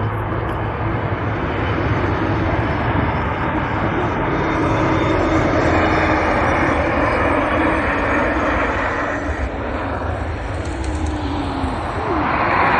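Jet noise from a Boeing 737 MAX 8's CFM LEAP-1B turbofan engines as the airliner comes in to land: a steady rush that grows louder near the end as the jet rolls along the runway after touchdown.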